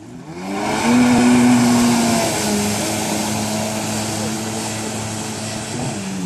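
Yamaha jet ski engine revving up as it pulls away, its pitch rising over the first second, then running steadily at speed with the hiss of water spray. The note steps down slightly about two seconds in and slowly fades as the craft moves off.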